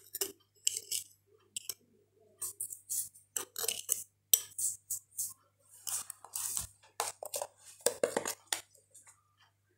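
A spoon clinking and tapping against bowls and spice containers as spices are measured into the marinating meat, in many short, irregular clinks.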